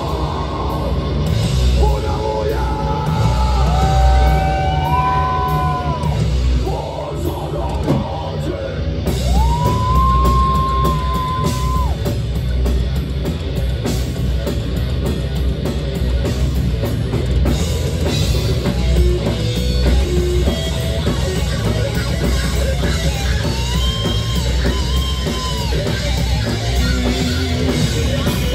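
Live heavy metal band playing: distorted electric guitars, bass and drum kit, with yelled vocals. A few long held notes ring out in the first several seconds and again near the end.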